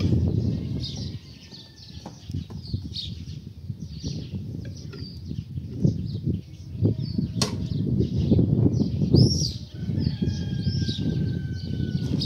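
Wind buffeting the microphone in uneven gusts, with small birds chirping and whistling over it and one sharp click about seven seconds in.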